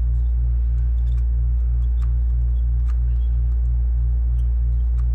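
Air-conditioning unit humming steadily and low, with a pulsing throb about three times a second. A few faint ticks from soldering work on the board sit on top.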